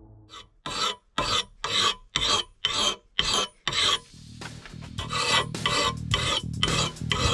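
A hand file scraping across the edge of an axe head clamped in a vise, sharpening it in even strokes about two a second. Guitar music comes in about four seconds in, under the continuing strokes.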